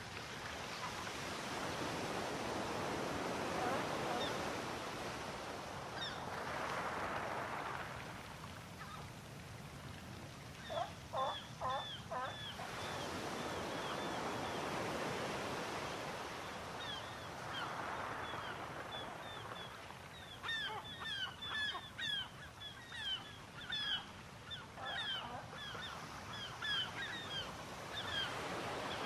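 Sea waves breaking and washing in, swelling and fading every few seconds, with a flock of birds giving many short, falling cries, a burst about ten seconds in and almost constant calling in the second half.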